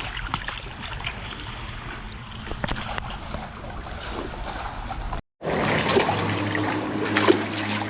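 River water trickling and lapping at the bank, with light wind and small scattered clicks. It cuts out briefly about five seconds in, and a louder stretch with a steady low hum follows.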